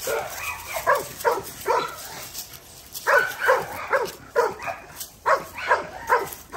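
A dog, in the middle of a litter of blue XL bully puppies, barks in quick runs of short barks, about two to three a second, with short pauses about two and a half and five seconds in.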